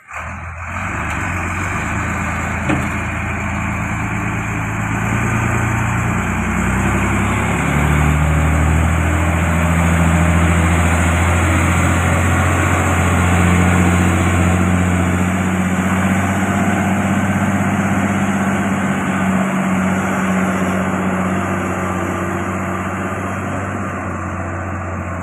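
Diesel engine of a heavy tractor-trailer hauling concrete pipes, running steadily under load; its note rises about eight seconds in and holds there.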